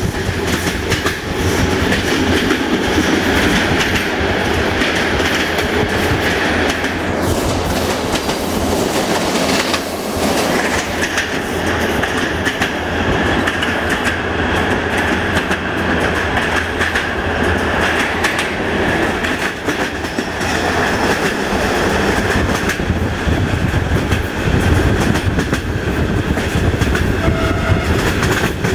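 Passenger coach of a diesel-hauled train running at speed, heard from inside: a steady rumble of wheels on rail with repeated clickety-clack as the wheels pass over rail joints.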